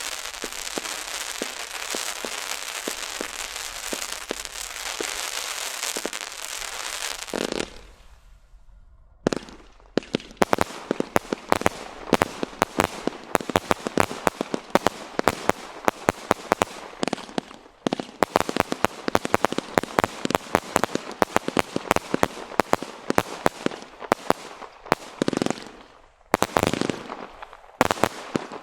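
BlackCat Apocalypse firework going off: a dense crackling hiss for about seven seconds, a short lull, then a rapid run of sharp cracks and bangs, many a second, that thins out near the end.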